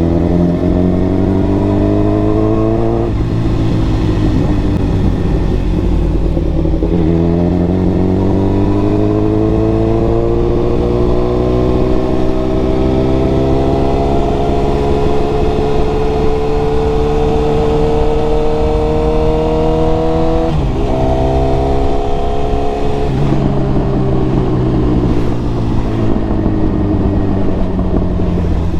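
Tuned Suzuki GSX-R1000 inline-four with a Racefit exhaust, running hard under way. The revs climb, drop sharply at a gear change about three seconds in, then rise slowly for a long stretch. They dip sharply again around twenty seconds in, and the engine note falls off near the end.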